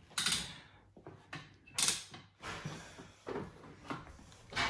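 Three short clacks and scrapes, with lighter knocks between, as a small child handles a toy play kitchen's knobs and fittings.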